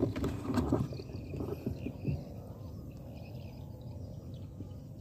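Rustling and a few light knocks from the rifle being moved and re-aimed in the first two seconds, then a quieter stretch with faint bird chirps.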